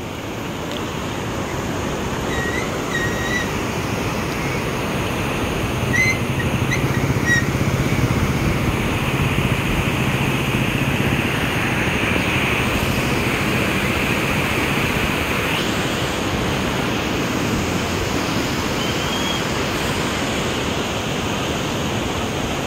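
Steady rush of the Penna River's water flowing past the bridge, an even noise throughout. A few short high chirps sound in the first several seconds, and a faint low hum runs for a few seconds through the middle.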